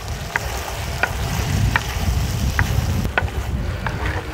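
A wooden spoon stirring okra and cream in a hot clay karahi, scraping the pot in short strokes about every two-thirds of a second, with the food sizzling from the pot's retained heat.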